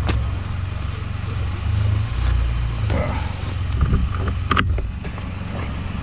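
Can-Am Spyder's engine idling steadily while the three-wheeler stands still, with a single sharp click a little past the halfway point.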